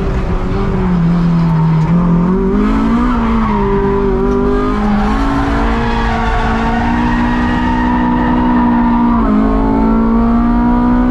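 Naturally aspirated Honda S2000 four-cylinder engine heard from inside the cabin at speed on track. Its note drops low early on, climbs again, steps through gear changes, and holds fairly steady. A sharp drop a little after nine seconds in is a shift, and the note then rises again.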